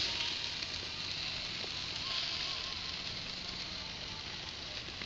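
Burger patties sizzling on a charcoal grill, their grease dripping onto the hot coals and flaring: a steady hiss.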